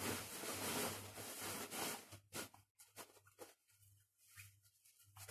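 Rustling and crinkling of a rolled-up poncho and plastic sheeting being unwrapped by hand: a dense rustle for about the first two seconds, then scattered quieter rustles and small clicks.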